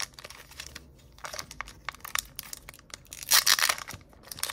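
Foil booster-pack wrapper being crinkled and torn open by hand: quick crackles, then a louder rip about three seconds in as the top strip tears away.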